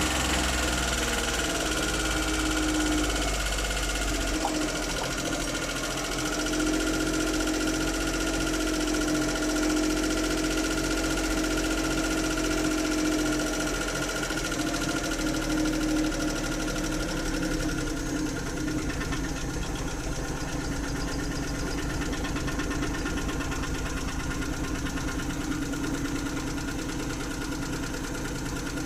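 Suzuki F6 engine running at idle, with carburettor trouble that gives it hard starting and a misfiring run. Roughly two-thirds of the way through, the idle becomes a little quieter and more evenly pulsing.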